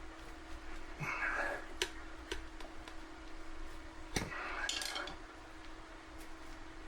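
Metal tire irons clinking and scraping against a dirt-bike wheel rim as the tire is levered onto the wheel, with a few sharp clicks.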